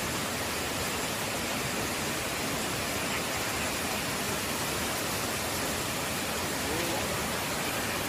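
Waterfall rushing steadily over rocks into a plunge pool, a constant wash of noise.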